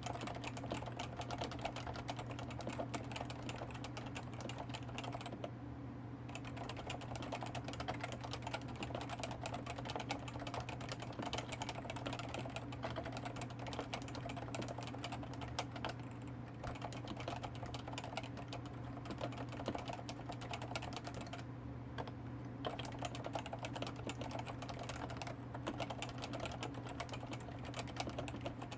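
Steady, fast typing on a Topre Realforce 104U electro-capacitive keyboard with 45 g keys and ABS keycaps, the keystrokes coming in a dense run with a few short pauses.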